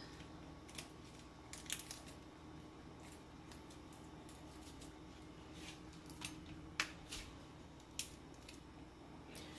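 Quiet room with a low steady hum and a handful of faint, scattered clicks and light taps, spaced unevenly.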